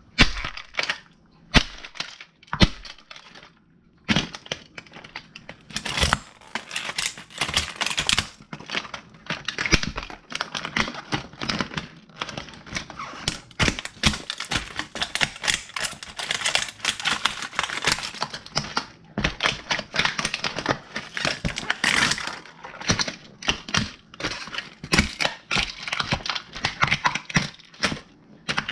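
An old plastic radio being crushed under stomping La Sportiva hiking boots: rapid, repeated cracking and snapping of its plastic casing and internal parts, mixed with the thuds of the boot soles, with a few short pauses in the first seconds.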